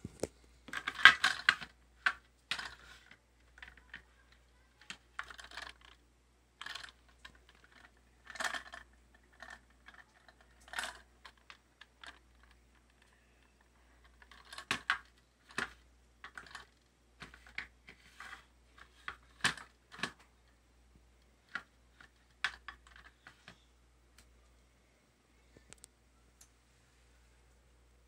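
Irregular light clicks and knocks of a plastic model row-boat kit and its orange oars being handled and set down, loudest about a second in and dying away near the end.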